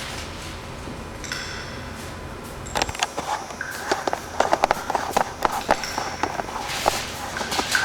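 100,000-year-old ice popping and crackling: a steady hiss with a brief ringing ping, then from about three seconds in a run of sharp, irregular clicks.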